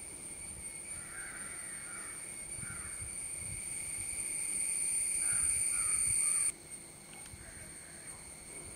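Short bird calls, crow-like caws, several times over a steady high-pitched drone. The drone grows louder, then drops away suddenly about two-thirds of the way through.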